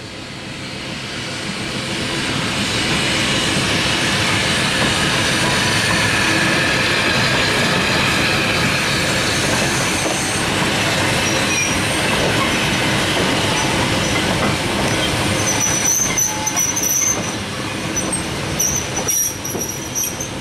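Andrew Barclay 0-4-0 saddle-tank steam locomotive No. 11 passing close by with a short goods train of wagons, the train's noise building over the first couple of seconds and then holding steady. In the last few seconds, as the wagons and brake van go by, the wheels squeal in short high-pitched bursts, with some clicking over the rail joints.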